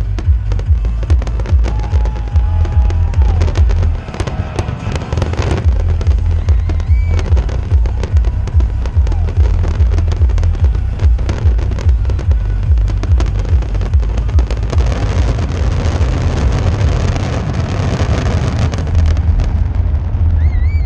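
Rapid, continuous barrage of aerial firework shells bursting, with many overlapping bangs and dense crackle over a deep rumble.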